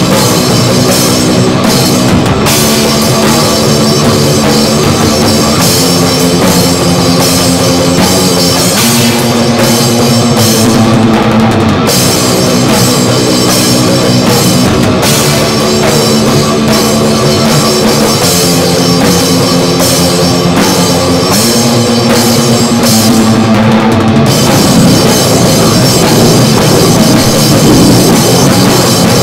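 Goregrind: loud, heavily distorted guitar riffs with bass and fast, pounding drums, dense and unbroken, with the riff shifting every few seconds.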